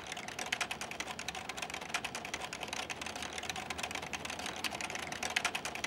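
Computer keyboard typed on rapidly, a long uneven run of key clicks without a break.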